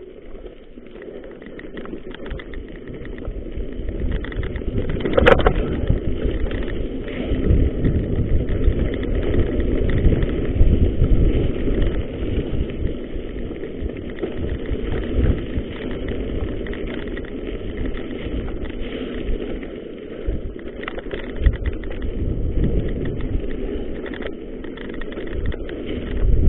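Mountain bike descending a rough gravel trail at speed: wind rushing over the microphone and the rattle and rumble of tyres and frame over the stones, building as speed picks up over the first few seconds. A sharp knock stands out about five seconds in.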